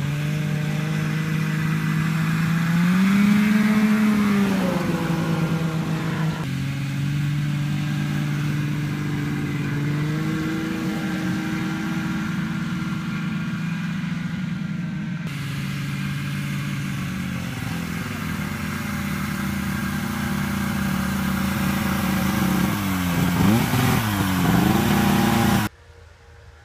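Old snowmobile engine running under a rider, its pitch swelling up and back down once early on, then holding fairly steady. Near the end it revs up and down quickly a few times before the sound cuts off suddenly.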